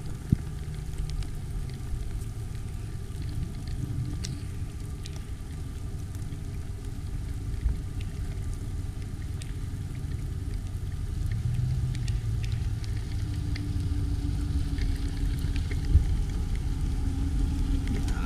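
Ram Rebel pickup with a 5.7 Hemi V8 driving toward the camera on a sandy dirt trail, a low engine rumble and tyre noise growing louder as it closes in and passes close by near the end.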